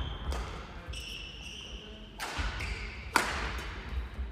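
Badminton play in a large echoing sports hall: a few sharp hits, the loudest about three seconds in, and short high squeaks of court shoes on the mat.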